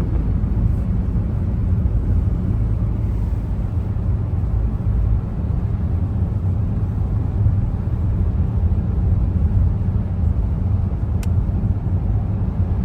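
Car driving on a snowy highway, heard from inside the cabin: a steady low rumble of engine and tyre road noise.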